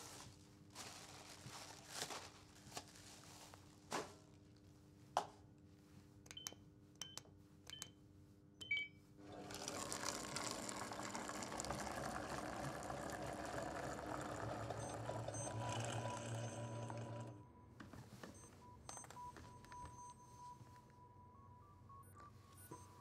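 Coffee vending machine: a few clicks and short button beeps, then the machine runs for about eight seconds, pouring coffee into a foam cup. A deeper hum joins near the end, and the machine stops suddenly.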